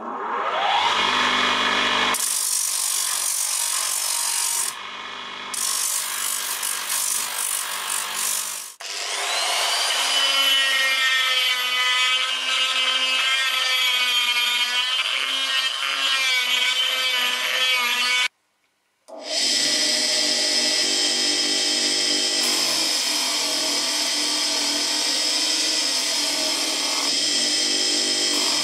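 An electric motor spins up an abrasive disc with a rising whine, and steel is ground on it. A die grinder with a mounted stone then whines up to speed and grinds steel inside a hammer's eye, its pitch wavering under load. After a brief silence a steel hammer head is sanded against a disc spinning on a motor spindle, a steady high whine with the hiss of abrasion.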